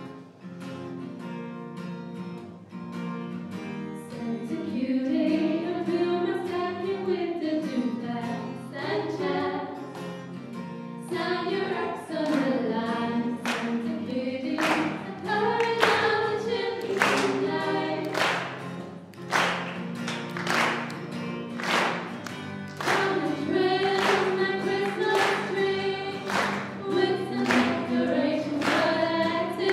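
Two women singing a Christmas song into microphones, accompanied by acoustic guitar. About eleven seconds in, the accompaniment settles into a strong, steady beat.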